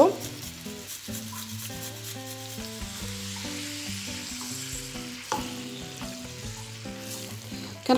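Grated onion and garlic sizzling steadily in hot oil in a nonstick frying pan, stirred with a wooden spoon, as the onion starts to fry.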